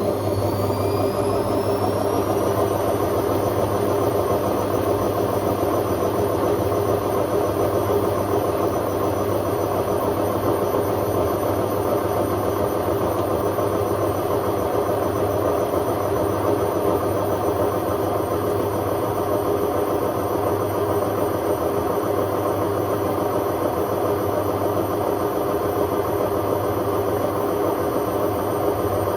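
Hotpoint Aquarius WMA50 washing machine spinning: the motor's whine rises over the first couple of seconds, then holds at one pitch as the drum runs at a loud, steady spin.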